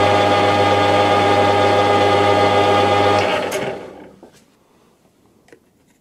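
Metal lathe turning an aluminium workpiece under cut: a loud, steady machine drone of several held tones. It fades out about three and a half seconds in, leaving a few faint clicks.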